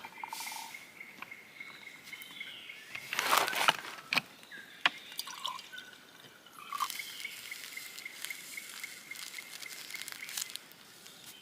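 Outdoor ambience of water dripping and trickling, with a steady high-pitched trill that stops about three seconds in and returns near the middle. A short splashing burst and a few sharp clicks come soon after it stops.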